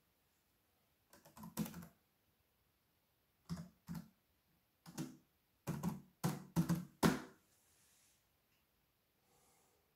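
Computer keyboard keys being typed: about fifteen keystrokes in uneven little bursts between about one and seven seconds in, as a short terminal command is entered.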